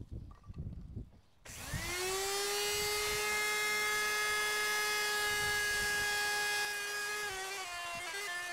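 Handheld electric router starting about a second and a half in, winding up to a steady high whine while routing a channel along the edge of a plywood subfloor panel. Its level and pitch drop slightly near the end as it cuts.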